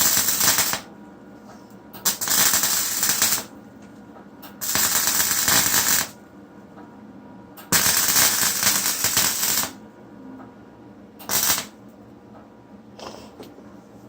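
Vulcan welder's arc crackling in five bursts, from about half a second to two seconds long with short pauses between them, the last one brief. It is welding a thin steel exhaust downpipe, and the welder says he burns holes in it.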